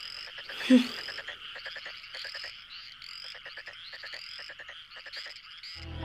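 Night chorus of frogs calling over and over, steady throughout. A short low sound comes a little under a second in, the loudest moment.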